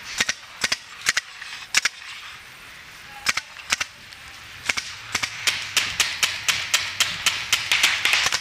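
Paintball markers firing: a few scattered single shots at first, then, from about five seconds in, a steady string of shots at about four a second.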